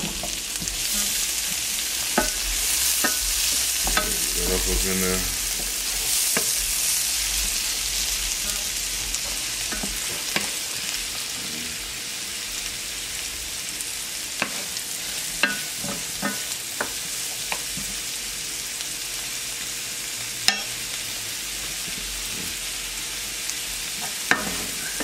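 Diced onions, bell pepper and portobello mushrooms sizzling in butter in a frying pan, stirred with a wooden slotted spatula that knocks against the pan now and then. The sizzle is strongest in the first few seconds and eases a little after.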